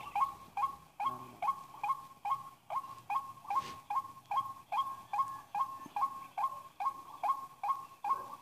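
White-breasted waterhen call repeated evenly, about two and a half notes a second. It is the lure call played from the trapper's calling machine. About three and a half seconds in there is a brief rustle.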